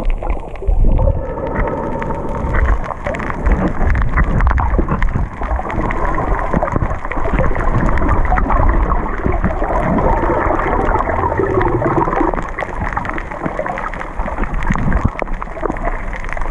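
Muffled water noise picked up by a camera held underwater: a steady, mostly low-pitched churning rush and rumble that runs on without a break.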